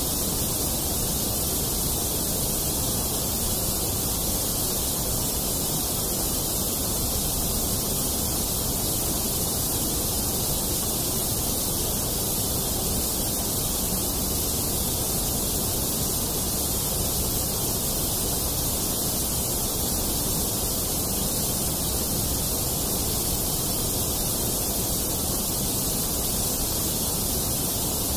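A steady, unchanging hiss of synthetic noise with no changes or events, used as the masking layer of a subliminal audio track.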